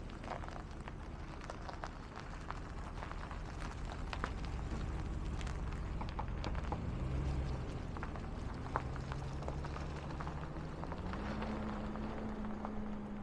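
GMC Sierra 2500HD pickup's engine running as the truck drives off on gravel, its pitch rising about seven seconds in and again near the end as it speeds up. Scattered crunches of gravel throughout.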